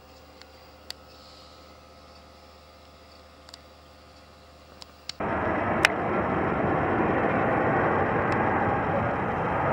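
A few faint clicks over quiet room tone, then an abrupt cut about five seconds in to the loud, steady engine noise of an Airbus A330-243 passing overhead on approach with its gear down, from its Rolls-Royce Trent 700 turbofans.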